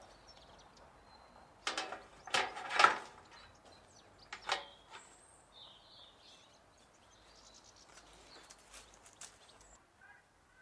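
Metal baking trays knocking and clattering against each other as one tray is set onto another. There is a run of rattling knocks about two seconds in and a shorter knock about four and a half seconds in.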